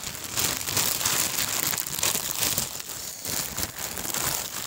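Frozen waffle packaging crinkling and rustling in irregular bursts as hands work the waffles out of it.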